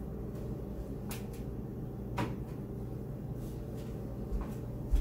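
A few light clicks and knocks at an open side-by-side refrigerator-freezer, the clearest about two seconds in and a dull thump at the end, over a steady low hum.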